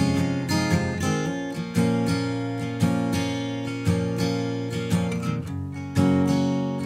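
Background music: an acoustic guitar strumming chords, about one strum a second, with no singing.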